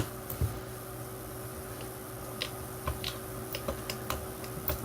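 Small, irregular clicks and ticks of a small screwdriver working the screws out of a toy quadcopter's circuit board, over a faint steady hum.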